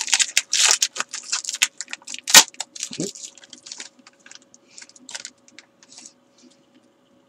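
Foil wrapper of a Donruss Optic football card pack crinkling and tearing open as the cards are pulled out: a quick run of crackles, busiest in the first couple of seconds with one sharp snap about two and a half seconds in, thinning out by about six seconds.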